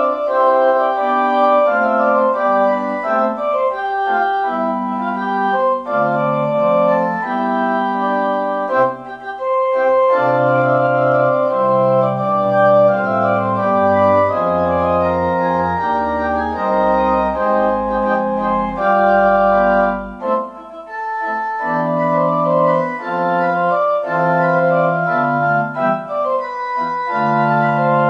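Organ playing a closing voluntary: sustained chords moving step by step, with deep pedal notes through the middle and a brief dip about twenty seconds in.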